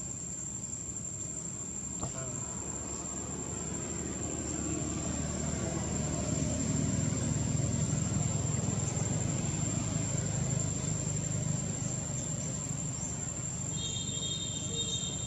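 A steady high-pitched insect drone with a low rumble underneath that swells through the middle and then eases off, and a short high chirp near the end.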